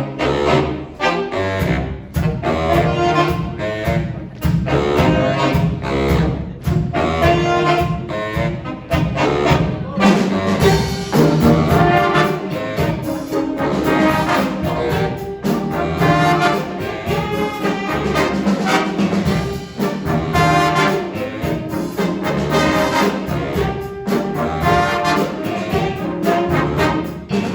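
Junior high jazz big band playing a swinging up-tempo chart: saxophones, trumpets and trombones in ensemble over bass and a steady beat.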